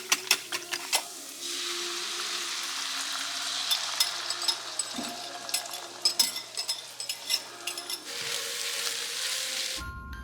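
Kitchen sounds: a steady sizzling hiss with scattered clicks and clinks of utensils, after a few sharp taps in the first second. It cuts off abruptly just before the end.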